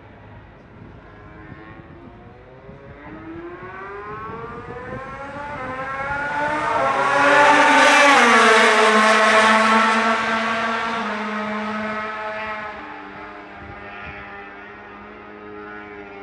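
MotoGP racing motorcycle's four-stroke four-cylinder engine at high revs as the bike passes. The engine note rises and grows louder, drops sharply in pitch as the bike goes by about eight seconds in, then fades away.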